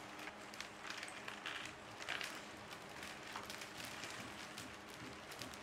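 900-piece cardboard jigsaw puzzle pieces poured from a plastic bag into a paperboard box, with many quick irregular clicks and rattles as they land, and the plastic bag crinkling.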